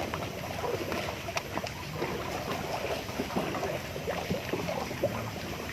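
River water lapping and trickling, with many small sharp knocks and splashes scattered through it.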